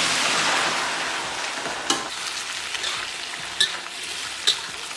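Duck pieces sizzling as they stir-fry in hot lard, the sizzle loudest at first and easing off, with a few sharp knocks of the spatula on the pan.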